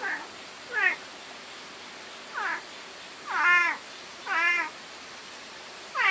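A cat meowing repeatedly: about six short meows, irregularly spaced about a second apart, several sliding down in pitch.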